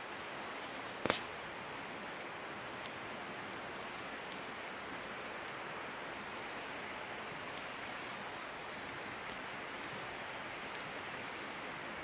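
Small wood campfire crackling, with scattered faint pops and one sharp, louder pop about a second in, over a steady rushing of river rapids.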